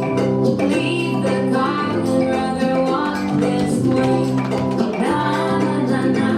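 A recorded song plays for a dance, with a female voice singing over instrumental backing.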